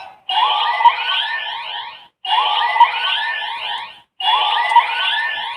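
Ultraman Decker Dual Sword toy's electronic sound effect looping after the Victory Key is inserted: the same alarm-like warbling clip plays three times, each about two seconds long with a short break between.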